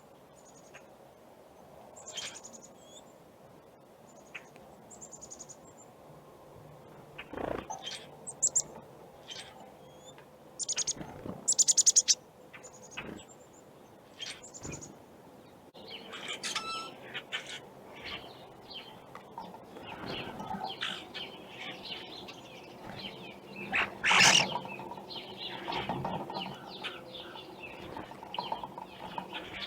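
Birds chirping, with several short bursts of wing flapping, the loudest about 11 to 12 seconds in and again around 24 seconds.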